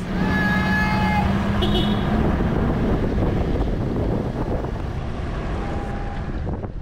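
Steady rumbling noise of a vehicle, with a held, horn-like tone with overtones over it for about the first second; the rumble eases slightly toward the end.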